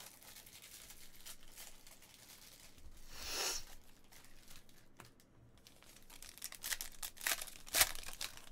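Foil trading-card pack wrappers crinkling and tearing in the hands, along with cards rustling. There is a longer rustle a little after three seconds and a run of sharp crinkles near the end.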